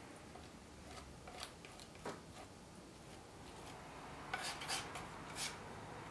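Palette knife scraping and spreading water-based cold wax medium and acrylic paint across a painting's surface: faint scratchy strokes, with a few sharper scrapes near the end.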